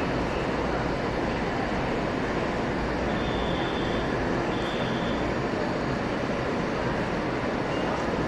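Taiwan Railways electric commuter train on the track beside the platform, giving a steady rumble and hum, with a faint high tone twice around the middle.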